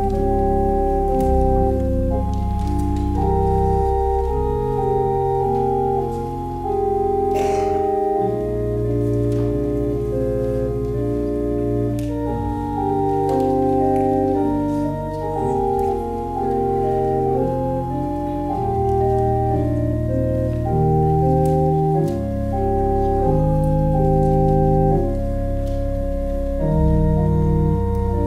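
Church organ playing an offertory: slow, sustained chords over a deep held bass, the chords changing every second or two.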